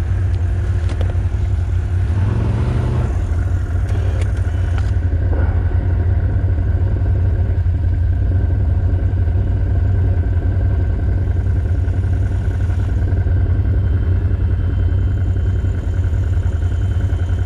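ATV engine running steadily at low speed with a deep, even drone.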